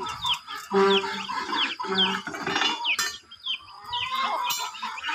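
Chickens clucking, with many short, high, falling peeps over them and a sharp knock about three seconds in.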